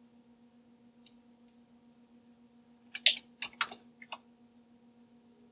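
Two light clicks, then a quick run of about five keystrokes on a computer keyboard as a number is typed in, over a faint steady hum.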